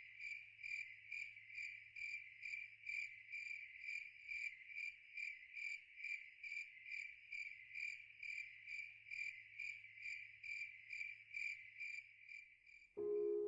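A cricket chirping steadily, about two high chirps a second, as a night-time effect. Near the end the chirping stops suddenly and piano music comes in.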